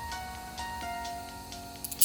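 Background music: plucked-sounding melody notes over a light, regular ticking beat.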